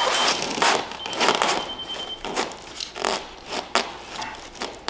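Scraping and rustling handling noises in several irregular bursts, with a steady high electronic tone that stops just after the start and sounds again from about one to two seconds in.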